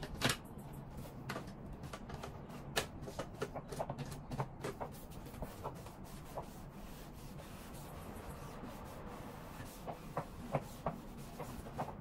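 Upright garment steamer's head being passed over a cotton shirt on a hanger: irregular clicks and knocks of the steamer head and hanger with fabric rubbing, over a low steady hum. The clicks come thickest in the first few seconds and again near the end.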